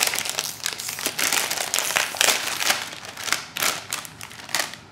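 Plastic snack bag crinkling and crackling as it is handled and pulled open, a dense irregular rustle that dies away near the end.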